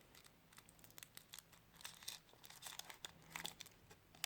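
Soft crinkling and small crackles of a Kinder Surprise egg's foil wrapper being handled and peeled open.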